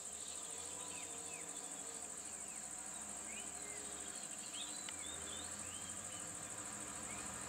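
A steady, high-pitched insect drone from the surrounding forest, with scattered short chirps above it and a low engine hum underneath from the idling minibus.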